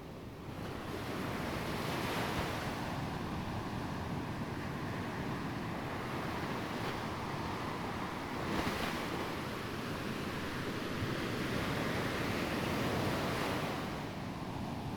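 Ocean surf: waves breaking and washing up the shore in a steady rush that swells up about half a second in and eases off near the end.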